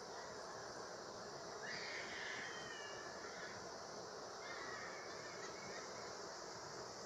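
Steady buzzing hum of a mass of honeybees clustered on the fronts of their hives. Short gliding bird calls sound over it about two seconds in and again about five seconds in.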